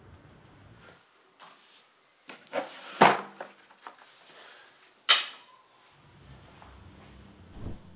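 A drawer is pulled open and rummaged through, with papers rustling and shuffling, loudest about three seconds in. A sharp bang follows about five seconds in, and a dull thump comes near the end.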